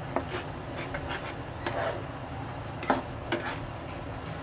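Silicone spatula stirring and scraping onions and ground spice paste around a frying pan, with a few sharp knocks of the spatula against the pan over a steady frying sizzle.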